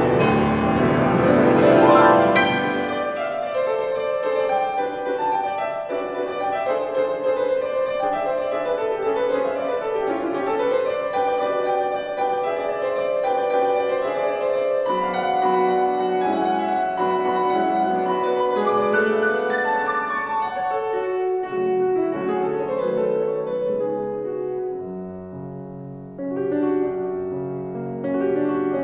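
Two grand pianos playing classical music together. It opens with a loud, dense run of chords, then goes on in steady flowing notes, drops softer near the end, and lower bass notes come back in.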